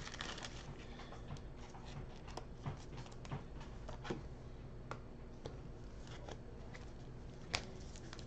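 Faint rustle and light taps of baseball trading cards being handled and set down on a stack, with one sharper click near the end.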